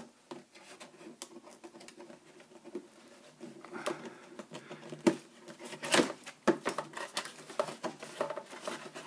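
Scissors snipping and scraping through the cardboard of a doll box, a run of small irregular clicks and scratches with two sharper snips about five and six seconds in.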